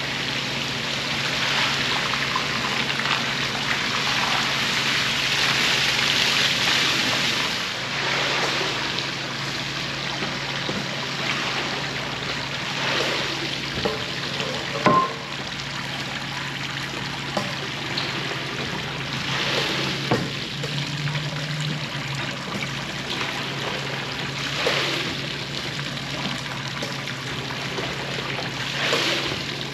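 Water splashing and running off a rug being rinsed, swelling every few seconds, over a steady low machine hum.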